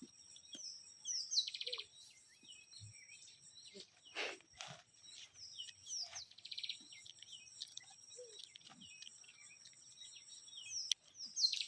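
Outdoor birdsong: a phrase of high, falling whistles running into a rapid trill, repeated about every five seconds, over a steady high-pitched insect drone. A couple of brief noisy sounds come about four seconds in.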